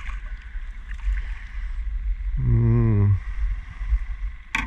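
A small black bream being brought to the side of a small boat, splashing at the surface under a steady low rumble. A short hummed voice comes about halfway through, and a sharp knock comes near the end.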